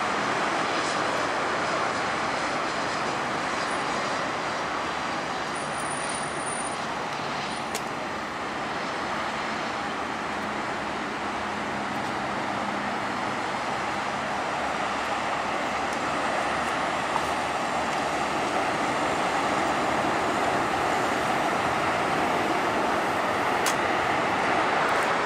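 Jet airliner engines and airflow of a landed aircraft rolling out along the runway: a steady rushing noise that holds even, with no sharp events.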